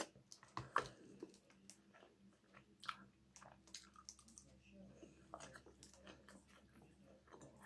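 Close-up eating: chewing and small mouth noises, with a metal fork now and then clicking against the bowl. The sounds are quiet and irregular, with the sharpest clicks in the first second and about three seconds in.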